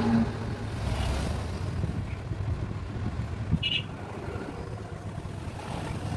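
Woodturning lathe's electric motor running with a steady low hum. A brief high-pitched chirp comes about three and a half seconds in.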